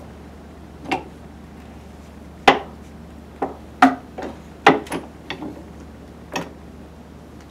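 Metal clanks and knocks from a hand-lever bench rope clamp press as a metal rope clamp is set in the second die position and pressed. About nine sharp knocks come at uneven spacing, the loudest about two and a half seconds in. This is the second pressing step that closes the clamp fully on the rope.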